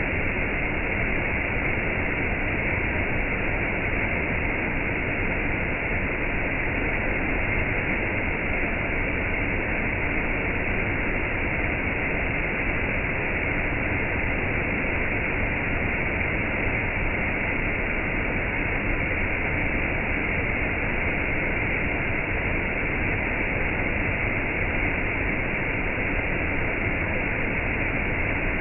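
Steady rain and waterfall noise: an even, unbroken rush of falling water with no single drops or changes standing out.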